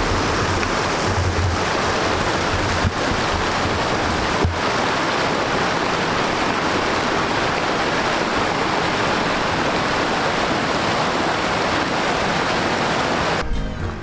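Mountain creek rushing and splashing over rocks and small cascades, a steady loud rush of water. It cuts off suddenly just before the end, giving way to background music.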